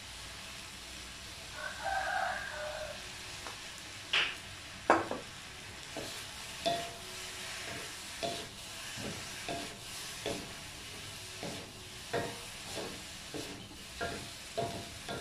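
A wooden spatula scraping and knocking against a wok as okra is stir-fried, starting about four seconds in and repeating roughly every half second to a second, over a steady sizzle of frying. A rooster crows once, about two seconds in.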